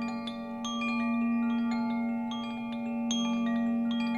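Hand-held bamboo-tube wind chime swirled on its cord, its rods striking irregularly several times a second in a cascade of ringing, overlapping bell-like notes. A steady low drone holds underneath.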